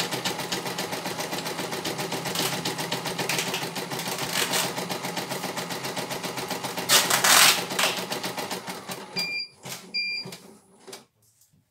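CNY E900 computerized embroidery machine stitching at a rapid, even rhythm, with one brief louder burst about seven seconds in. The stitching stops about nine seconds in and the machine gives two short beeps.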